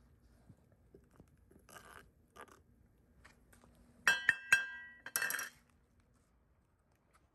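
Steel spoon knocking against a cast iron skillet while skimmed dross from molten aluminum bronze is tapped off: a few sharp, ringing clinks about four seconds in, then a brief scrape. Softer scrapes come a couple of seconds earlier.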